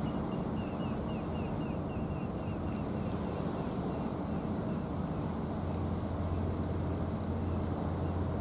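An engine runs steadily with a low hum. For the first half there is also a fast run of short high chirps, about four a second, which fades out.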